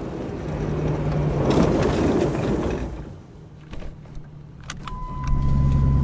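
A car passes with a rush of noise that swells and fades. Then come a few sharp clicks, a steady high tone comes on, and a car engine starts and runs with a steady low hum.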